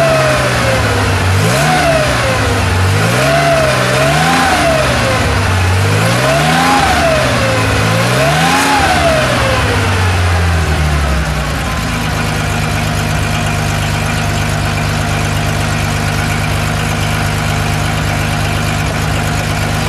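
1971 Porsche 911S's 2.2-litre air-cooled flat-six with mechanical fuel injection, revved in about five blips that each rise and fall in pitch. About eleven seconds in it drops back and idles steadily.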